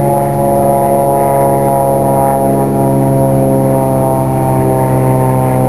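Approaching diesel locomotive, its engine running with a loud, steady drone.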